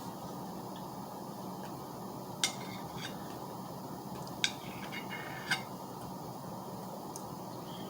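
Cutlery clinking against a dish a few times, three sharper clinks with a short ring among softer taps, over a steady low background hum.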